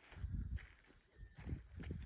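Footsteps of a person walking over rough outdoor ground: irregular low thuds, with a quieter stretch in the middle.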